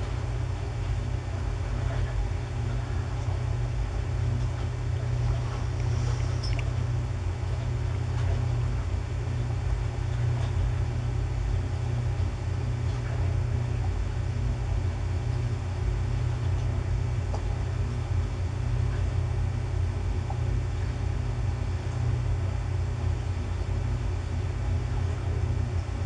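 Steady low rumble with a faint hum, unchanging throughout, and a few faint ticks.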